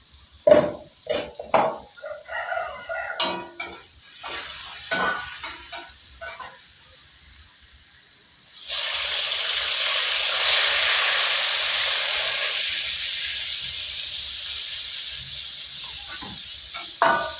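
Spatula knocking and scraping in a wok. About eight and a half seconds in, food goes into the hot oil and a loud frying sizzle starts suddenly, then slowly fades.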